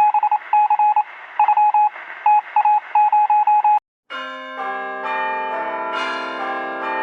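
Short electronic beeps, all on one pitch, sounding in uneven groups, thin as if heard over a phone line. After a brief break comes a chime of many steady bell-like tones that enter one after another and ring together.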